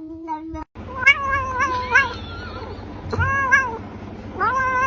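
A cat meowing three times, drawn-out calls that each rise and then fall in pitch.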